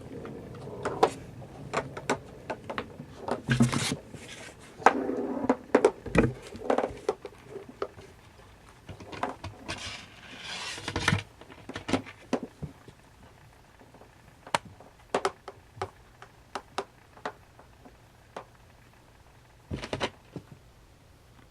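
Kittens playing: scattered taps, knocks and small thumps, with a few brief scuffling bursts. They are busy in the first half and thin out toward the end.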